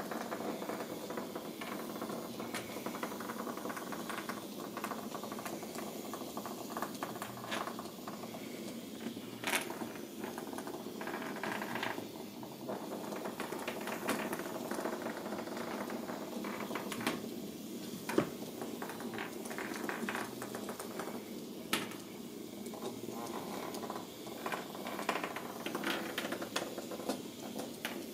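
Balls rolling around the plastic tracks of circular cat scratcher toys as kittens bat at them: a steady rolling rattle with sharp clicks and knocks now and then, the loudest a little past the middle.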